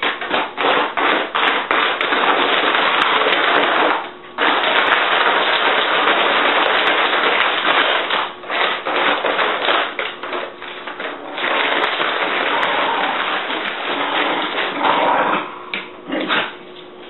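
Brown paper bag crinkling and rustling loudly as a Jack Russell terrier noses and paws at it, with many sharp crackles. The rustling stops briefly about four seconds in and dies down near the end.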